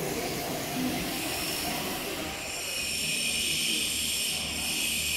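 A CNC router running with a steady hiss. About two seconds in, a high whine joins it and holds steady.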